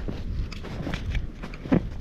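Footsteps crunching in fresh snow, with irregular rustling and handling noise close to the microphone as a bare hand comes up over the lens.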